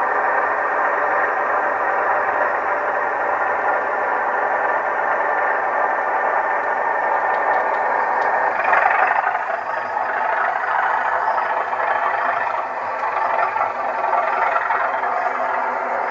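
Heljan O gauge Class 37 model's DCC sound decoder playing a Class 37's English Electric diesel engine running steadily through the model's speaker, swelling louder for a moment about nine seconds in.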